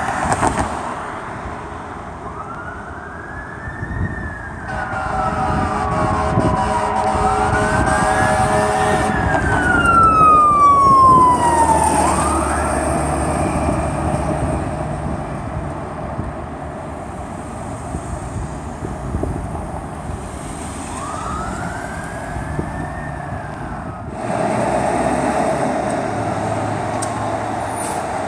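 Fire truck's Whelen Alpha siren wailing, winding up and down slowly three times, with an air horn held for about five seconds near the start, over the rumble of the aerial tower truck's engine.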